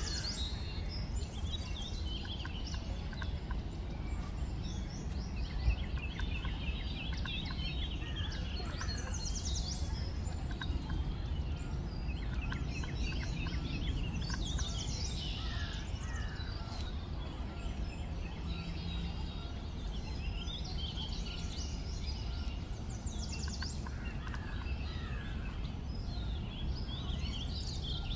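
Several small birds chirping and trilling in short phrases over a steady low rumble of outdoor background noise, with one sharp click about six seconds in.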